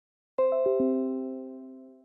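Computer alert chime: four quick bell-like notes, mostly falling in pitch, struck about half a second in, then ringing out and fading away.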